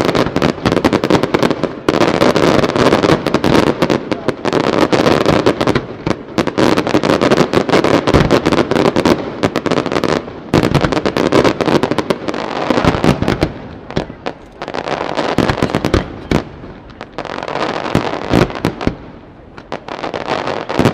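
Fireworks display: a rapid barrage of shells bursting and crackling, many bangs a second, densest in the first dozen seconds, then coming in waves and thinning near the end.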